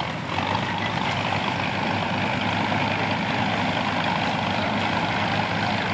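Engine of the river ferry's motorboat running steadily, starting a moment in.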